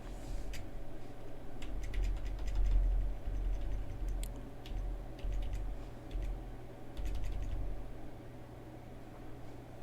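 Computer mouse and keyboard clicking in short scattered clusters, over an uneven low rumble.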